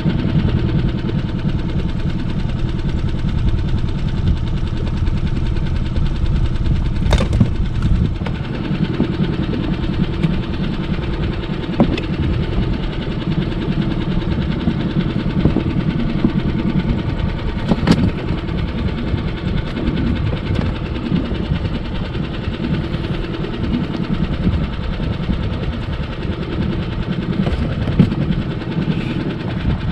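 Small outboard motor running steadily at slow trolling speed, with a few short, sharp clicks over it.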